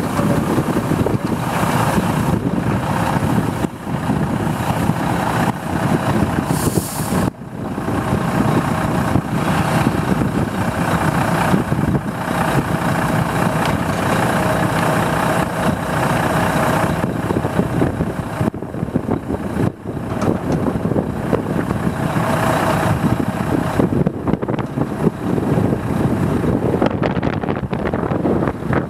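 Volvo EC180D crawler excavator's diesel engine running steadily while its boom and bucket are worked, with a whine coming and going above the engine and a short hiss about seven seconds in.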